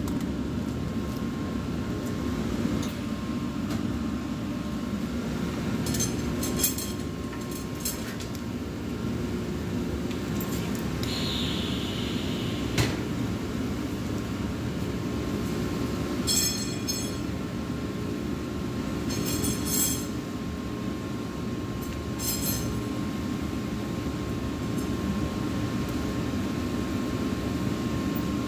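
Glass threads cracking and pinging as they cool on stainless steel, heard as short spells of rapid ticking and tinkling several times, over a steady low roar.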